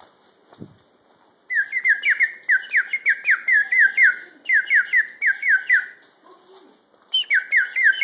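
Bird caller sounding rapid runs of short, falling chirps, about five a second, in three bursts with brief pauses between them.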